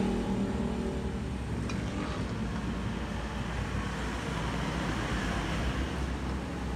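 Steady low rumble and hiss of background road traffic, with a couple of faint clicks about two seconds in.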